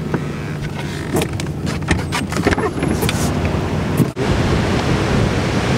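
Inside a car in slow traffic: a steady low hum with scattered clicks and rustles of handling. About four seconds in there is a brief dropout, then a louder, broader rushing noise.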